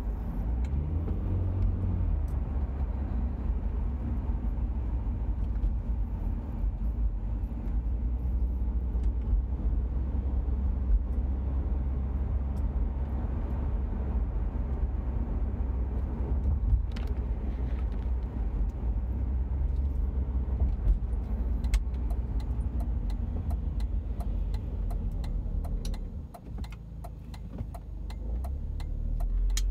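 Engine and road noise inside the cabin of an Audi A4 B6 with the 1.8 litre turbocharged four-cylinder, driving, as a low steady rumble that dips quieter for a couple of seconds near the end. The car shows a jerking, rpm-bouncing fault between about 1,800 and 2,500 rpm when accelerating. Regular light ticking runs through the last third.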